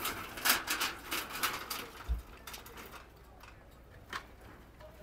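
Light knocks and rattles from a wooden-framed street stall being gripped and shifted by hand, with one dull low thump about two seconds in. Quieter for the second half.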